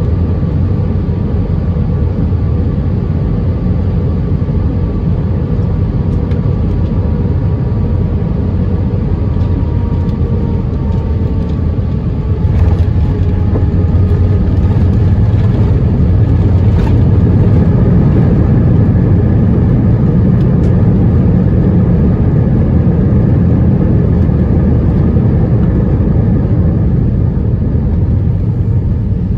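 Airbus A320 cabin noise on the ground after landing: a steady low rumble from the CFM56 engines and the rolling aircraft, with faint steady engine tones above it. It grows a little louder about twelve seconds in.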